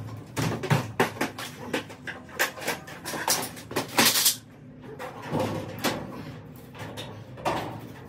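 Irregular knocks, clanks and rattles as an aluminium stepladder and a derailed sectional garage door's panel and track hardware are handled, with a brief louder scraping rush about four seconds in.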